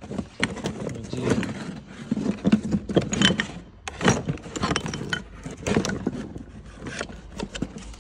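New engine parts handled in a cardboard box: irregular rustling and scraping of cardboard and rubber belts, with metal clinks from a water pump and tensioner pulley being moved about.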